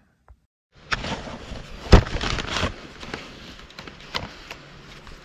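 A brief silence, then a mountain bike being moved or ridden outdoors: a rushing noise with scattered clicks and knocks, and one loud knock about two seconds in.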